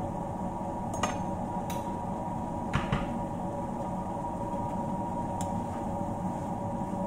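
A spoon clinking against the cookware several times, about one, two and three seconds in and once more after five seconds, over a steady hum.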